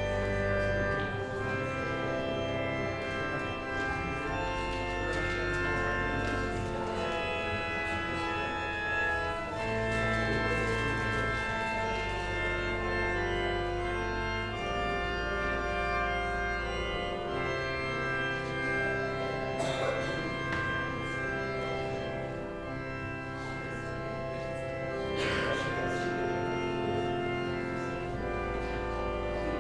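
Organ music: sustained chords held over long, steady bass notes that change every few seconds.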